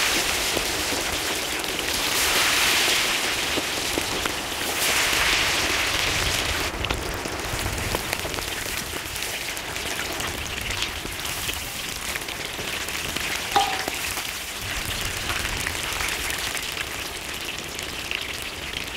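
Marinated quail pieces deep-frying in hot oil in an iron kadai: a steady, loud sizzle that swells twice in the first six seconds, with a single metallic clink about two thirds of the way through.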